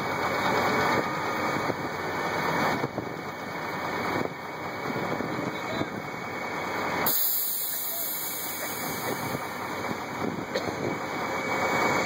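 Steady drone of farm machinery: tractors running the unloading augers of two grain carts as they pour harvested wheat into a grain truck.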